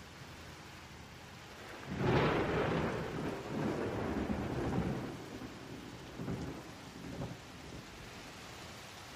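A sudden deep rumble about two seconds in that dies away slowly over a few seconds, followed by two smaller rumbles, over a steady low hiss.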